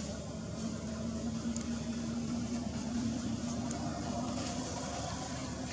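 A steady, unbroken low mechanical hum, like a small motor or engine running, under a constant background hiss.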